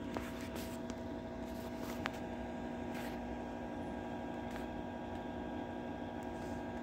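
A steady machine hum holding several fixed tones, with a few faint clicks over it.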